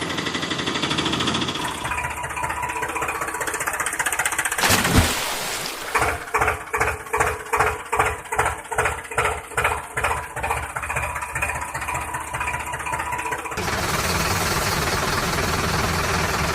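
Engine sound: a steady run at first, a sharp thud about five seconds in, then a slow chugging of about two beats a second through the middle. Near the end it gives way to a steady rushing noise.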